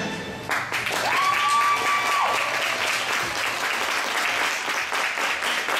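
Audience applause breaking out about half a second in as the skating program's music ends, with one whistle that rises, holds for about a second and drops.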